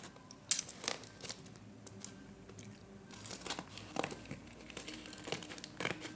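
Parcel packaging crinkling and tearing as it is opened by hand: irregular crackles and snaps, the sharpest about half a second in.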